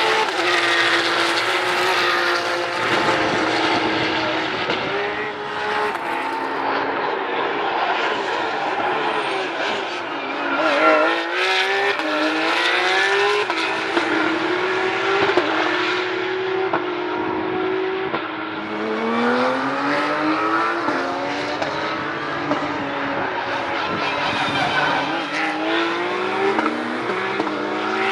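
GT race cars (Lamborghini, Porsche and Ferrari trophy cars) running at racing speed, with several engines heard in succession. Their pitch rises again and again as they accelerate and shift up through the gears, loudest about eleven seconds in.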